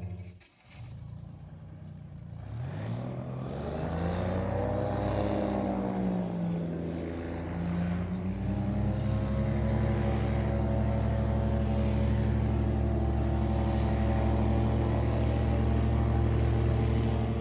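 Airboat engine and propeller running: the pitch rises and falls back between about three and six seconds in, then holds a steady drone.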